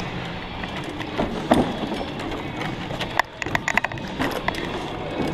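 Mountain bike riding fast over wooden plank ramps and slats: tyres rolling and clattering on the boards, with frequent sharp knocks and a quick run of clicks about three and a half seconds in, over a steady rushing noise.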